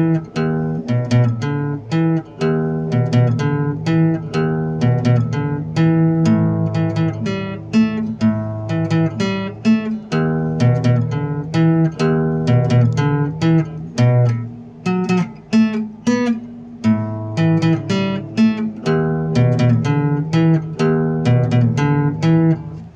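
Background music: acoustic guitar playing picked and strummed chords in a steady rhythm.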